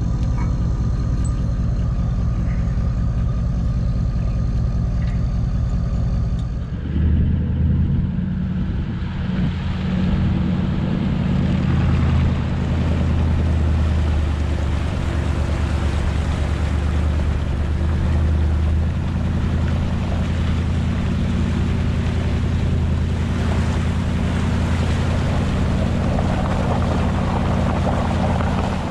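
Background music for the first several seconds, then from about seven seconds in a Toyota LandCruiser 76 Series engine running steadily while driving, a low drone with wind and surf noise over it.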